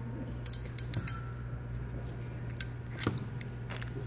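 Sharp clicks of an RJ45 crimping tool and connector being worked: a quick cluster about half a second to a second in, and a louder click about three seconds in, over a steady low hum.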